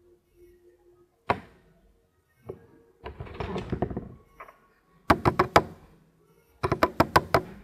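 Sharp taps: a single tap, another about a second later, a stretch of rustling, then two quick runs of about five or six taps each.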